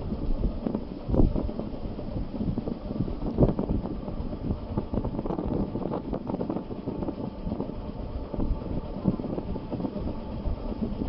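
Steady rumbling road and wind noise from a moving vehicle, with uneven gusts buffeting the microphone.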